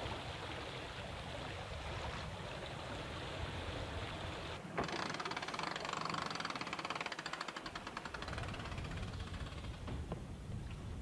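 Wind and water rushing on the deck of an offshore racing yacht under sail, with a steady low rumble. About halfway in the sound changes abruptly, and a fast, even run of clicks follows for about three seconds.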